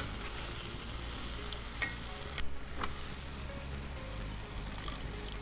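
Chili-cheese sauce sizzling steadily in a cast-iron pan over a wood fire, with a few light knocks of a wooden spatula against the pan near the middle.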